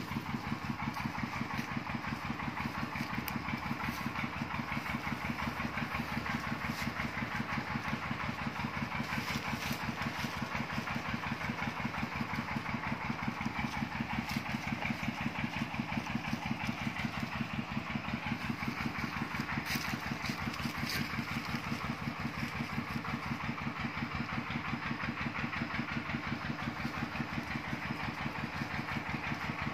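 An engine running steadily at idle, with a fast, even putter that does not change.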